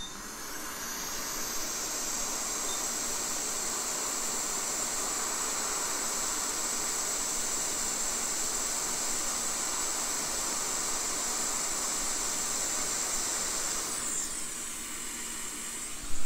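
Hot air rework station blowing a steady hiss over a circuit board while a small surface-mount jumper is desoldered. The airflow builds up over the first second or two and stops about two seconds before the end.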